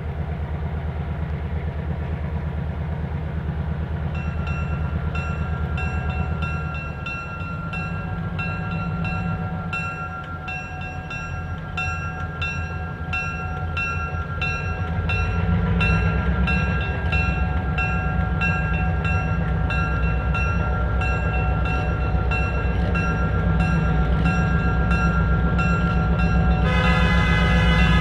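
Diesel freight locomotive approaching with a steady low engine rumble, while a bell rings about twice a second from about four seconds in. Near the end a car horn starts blaring.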